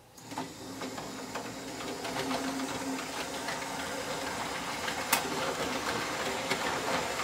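OO gauge model InterCity 125 (HST) train running on track: a steady electric-motor hum with rapid small clicks of wheels over the rail joints, and one louder click about five seconds in.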